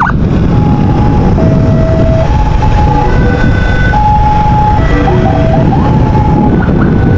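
Ambulance siren sounding in steps between held tones of different pitch, with a few short glides, over a loud low rumble.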